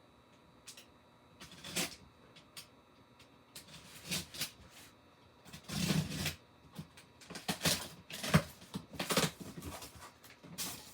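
A cardboard toy box being opened and its packaging handled: irregular rustling, scraping and light knocks, busiest in the second half.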